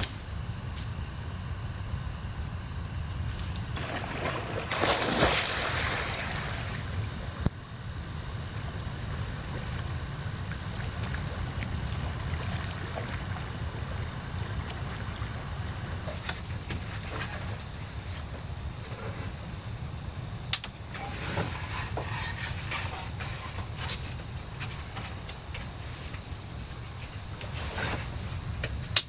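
A steady, high-pitched insect chorus that drones without a break. Bursts of rustling and a few sharp knocks from gear being handled come over it.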